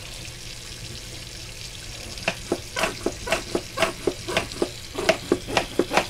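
Stiff dish brush scrubbing wet G-scale model railway track in soapy water, in short rhythmic strokes about two or three a second, starting about two seconds in.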